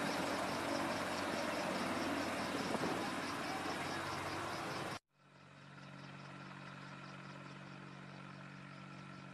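AH-64 Apache helicopter's twin turboshaft engines and rotors running close by, a loud steady rushing noise. About five seconds in it cuts off abruptly and comes back quieter and more distant, a steady hum with a few fixed tones.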